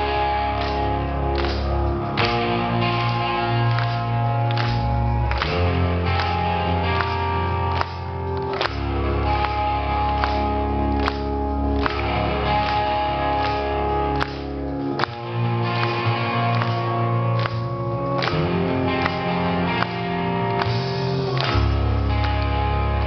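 A rock band playing live, mostly instrumental: electric guitars hold long notes over a bass line that shifts note every few seconds, with drum hits throughout.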